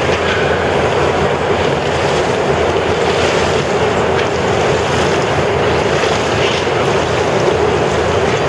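Steady, loud rush of blown wind with a low hum under it: large fans making wind across an indoor pool so that Optimist dinghies can sail.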